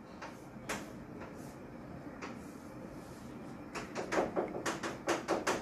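Chalk drawing on a blackboard: a few scattered strokes at first, then a quick run of short taps and scrapes in the last two seconds.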